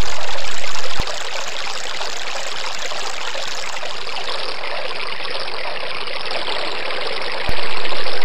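Stream water running steadily. It drops in level with a click about a second in and comes back up with another click near the end.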